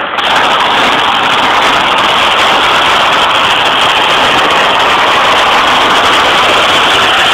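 Engines of demolition derby pickup trucks running as they push against each other, heard as a loud, steady din without any clear single note.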